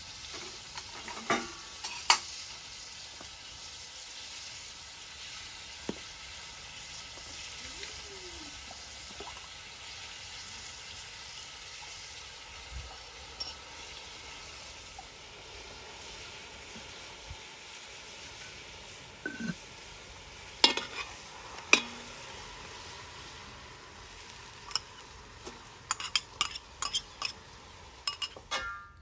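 Meat and seasonings sizzling in a large aluminium pot over a charcoal stove, a steady hiss, with occasional sharp metal clinks against the pot, several of them near the end.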